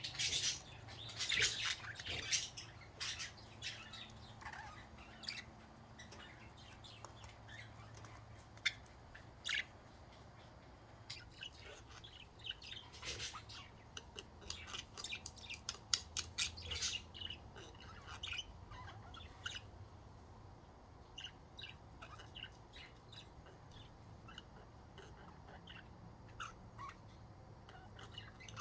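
Budgerigars chirping and chattering in short, sharp calls, busiest in bunches near the start and in the middle, then sparser.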